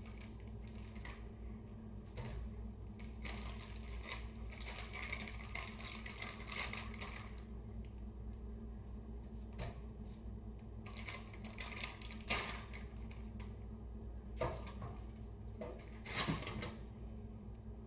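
Frozen cookie dough pieces being set down one by one on a foil-lined baking pan: irregular light taps with crinkling of the aluminum foil, in clusters, over a steady low hum.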